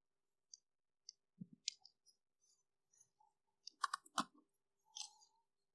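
Faint, scattered clicks and light taps of small plastic parts and wire connectors being handled and plugged in, with a brief cluster of sharper clicks about four seconds in.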